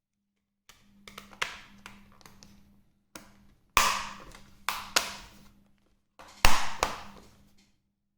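Hard plastic clicks and knocks from a laptop's case and access panel being handled, the loudest knocks coming in pairs about four and six and a half seconds in.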